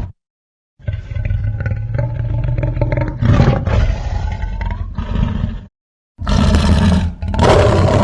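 Fan-made Godzilla Jr. roar sound effect: a long roar with a bending pitch that lasts about five seconds, then a short gap and a second roar starting near the end.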